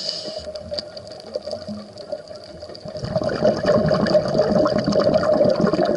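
Scuba diver breathing through a regulator underwater. A hiss of inhaling ends about half a second in, then a loud bubbling rush of exhaled air starts about three seconds in.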